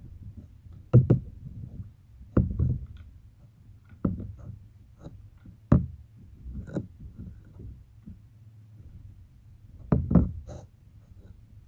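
Slime being handled: irregularly spaced soft thuds and small sharp clicks, about seven in all, with a close pair about ten seconds in.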